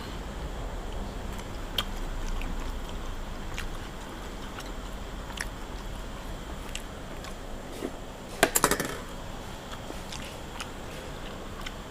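Eating from a bowl: scattered light clicks and clinks of a utensil on a dish, with a quick cluster of sharper clinks about eight and a half seconds in.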